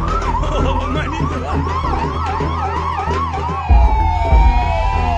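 Electronic ambulance siren yelping, its pitch rising and falling quickly about three times a second. About two-thirds of the way in it switches to slower falling sweeps over a steady tone. A deep music beat runs underneath.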